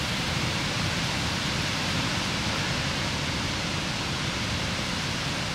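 Strong wind blowing steadily, heard as an even rushing noise with low rumbling flutter on the microphone.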